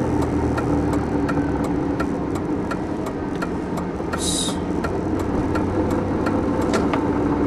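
Pickup truck in four-wheel drive running through slush, heard from inside the cab: steady engine and tyre noise with an even ticking about three times a second. A brief hiss about four seconds in.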